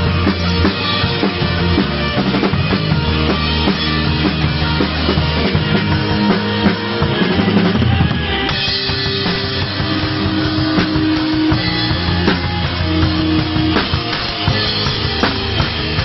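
Rock music with a full drum kit. Held low bass notes run through the first half; about halfway they drop out and the drum strokes come forward.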